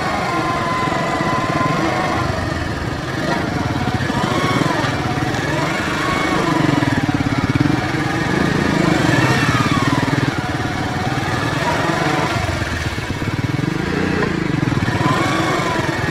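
Bajaj Boxer 100's single-cylinder four-stroke engine running while riding, its pitch rising and falling several times as the throttle is opened and closed.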